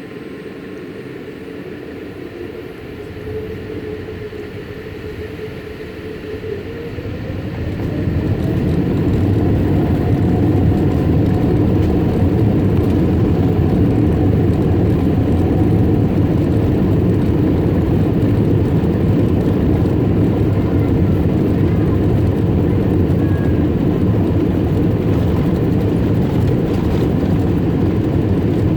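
Boeing 787 jet engines spooling up to takeoff thrust: a whine rises in pitch over the first several seconds, then from about eight seconds in a loud, steady roar holds through the takeoff roll.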